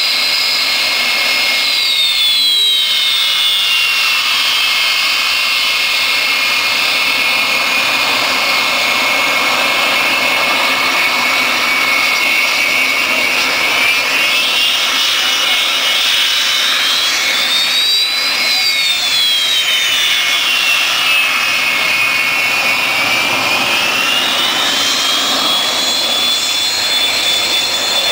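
An F-16 fighter's jet engine running on the ground with a loud, steady roar and high whine. The whine's pitch drops a couple of seconds in, climbs and falls again around the middle, then rises and holds near the end, over a second whine that stays level.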